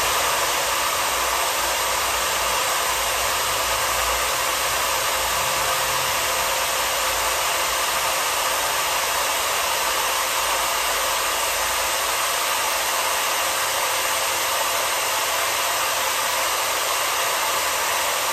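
RIDGID 600 hand-held power drive running steadily, turning a 1-1/4 inch pipe die on steel pipe, with an even motor whine.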